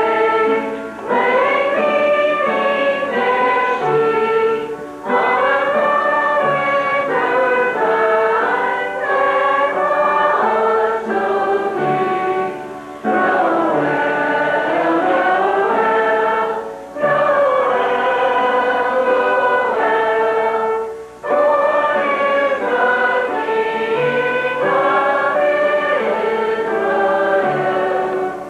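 A congregation singing a hymn together, in sustained phrases with a short breath break about every four seconds.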